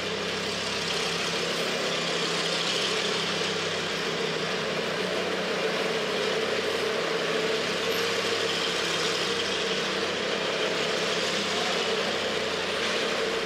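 Car engine idling steadily: a constant low hum with an even hiss over it, unchanging throughout.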